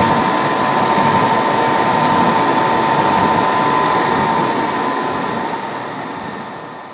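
Milling machine cutting the teeth of a spiral bevel crown gear: a steady mechanical running noise with a thin, steady whine, fading away over the last few seconds.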